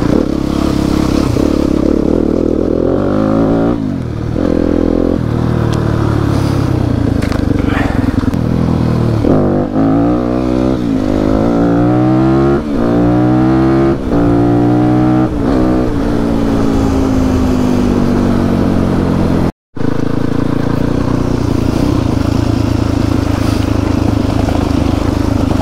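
Enduro motorcycle engine under way, revving up and falling back in a run of short rising pulls, then running steadily. The sound breaks off for an instant about twenty seconds in.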